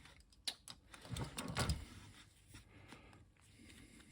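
Small clicks and handling noise of a flat ribbon cable and plastic IDC connector being lined up and pushed together by hand, with a louder rustling scrape about a second in.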